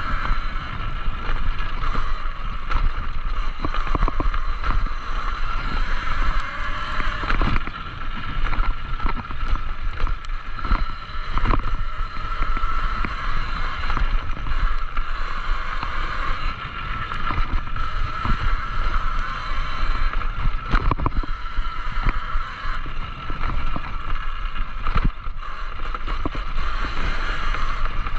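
Talaria Sting electric dirt bike riding along a rough dirt trail: a steady whine from the electric drivetrain over the rumble of tyres on dirt and wind on the microphone, with frequent knocks as it goes over bumps.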